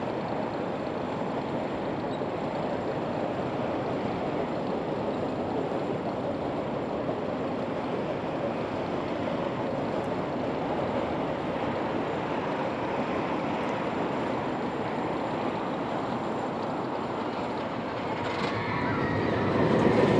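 Steady outdoor background noise, an even rushing haze with no clear single source, which grows louder near the end.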